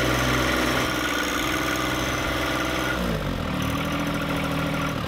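John Deere 1025R compact tractor's three-cylinder diesel engine running steadily; about three seconds in its speed drops and it settles at a lower, even note.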